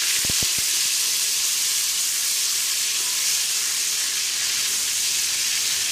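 Ginger-garlic paste frying in hot oil in an aluminium pressure cooker while stirred with a wooden spoon: a steady sizzling hiss, with a few soft thumps just after the start.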